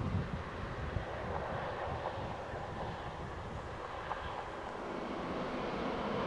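Embraer E190-E2 jet moving on the runway: the steady rushing rumble of its Pratt & Whitney PW1900G geared turbofans, with wind buffeting the microphone. It grows louder near the end.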